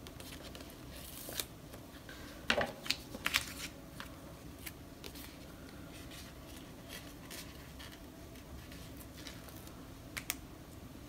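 Planner pages being handled at a desk: soft paper rustling, with a quick cluster of sharp clicks and snaps about two and a half seconds in and one more click near the end.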